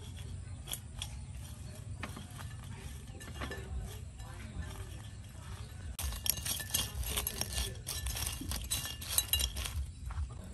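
Crispy cooked beetles being tossed and rubbed by hand on a ceramic plate, their hard shells clicking and scraping against the china. A few scattered clicks at first, then a dense run of rapid clicking for about four seconds from the middle on.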